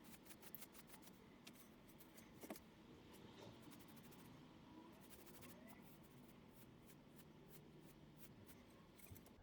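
Faint, irregular scratchy strokes of a paintbrush spreading paint over an MDF board.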